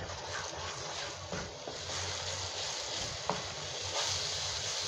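Tomato and chickpea paste sizzling steadily in hot oil in a kadai as it is stirred in with a wooden spatula, with a few light scrapes and taps of the spatula on the pan: the masala is being fried.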